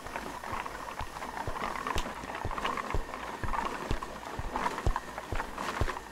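Added footstep sound effects: flip-flops slapping on a hard store floor in uneven steps, over steady background noise.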